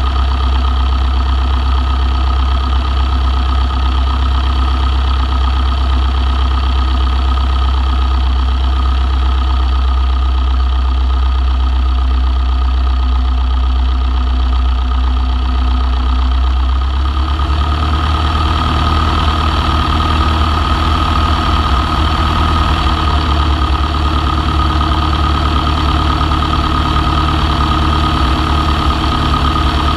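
Long-EZ's pusher piston engine running at low power with a steady idle, under heavy low rumble from wind on the externally mounted camera. About halfway through, the engine note changes and its pitch lines grow stronger.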